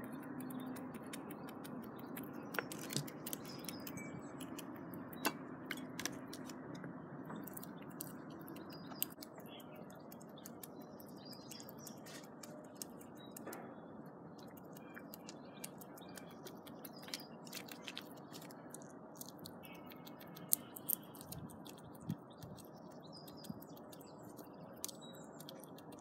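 Grey squirrel gnawing and cracking a nut close to the microphone: scattered sharp clicks and crunches over a steady background hiss, with faint birdsong.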